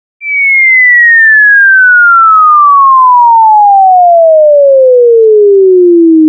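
Cartoon falling whistle sound effect: one long, pure whistle tone sliding steadily down from high to low pitch, with a slight wobble as it nears the bottom.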